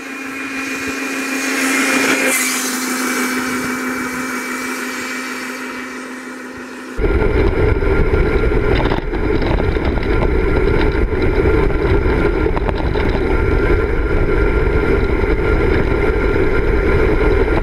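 1500-watt brushless electric scooter climbing a steep hill under power: a steady motor whine with tyre noise that grows louder as it approaches. About seven seconds in, it is heard from the handlebars, with heavy wind rumble on the microphone over the motor's whine.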